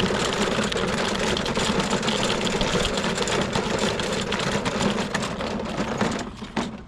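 Walk-behind lawnmower's small engine running steadily, then shutting off about six seconds in.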